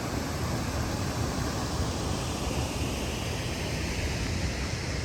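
Rushing water of a waterfall: a steady, unbroken roar of falling water with a deep rumble.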